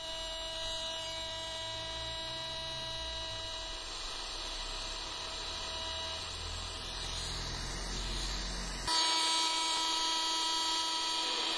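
Tivdio V-115 portable radio on medium wave giving out a steady hum and static laced with several fixed whining tones, the set's own strong internal noise, with no station coming through. About nine seconds in the sound changes suddenly and gets a little louder as the radio is switched to another frequency.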